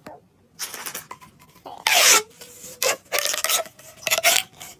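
Corrugated plastic pop tube being stretched and squashed, giving rasping, crackling bursts in an uneven run, the loudest about two seconds in, with a brief squeak just after it.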